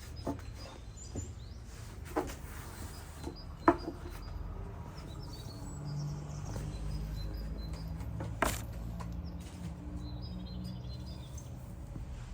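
Outdoor ambience with small birds chirping faintly and a steady low rumble, broken by a few short sharp knocks, the loudest about a third of the way in and another about two-thirds in.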